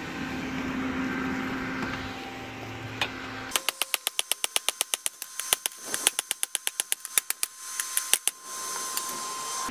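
Steady hum of a coal forge's air blower. About three and a half seconds in it cuts off, and a rapid run of hammer blows strikes hot 5160 steel on a railroad-track anvil, several a second with a ringing note, until near the end.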